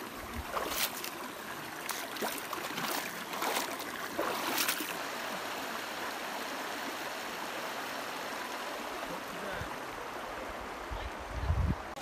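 Water splashing as feet wade through a shallow, rocky stream, several splashes in the first five seconds, over the steady sound of running stream water. A low thump near the end.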